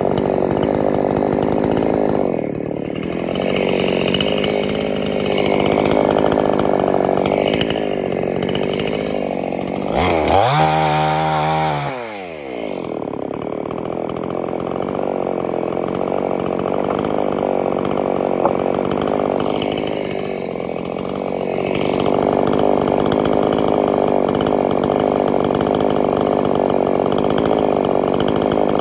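Gasoline chainsaw running and cutting through scrap lumber boards, its engine note dipping slightly at times under load. About ten seconds in it revs up briefly, and the pitch falls quickly before steady running resumes.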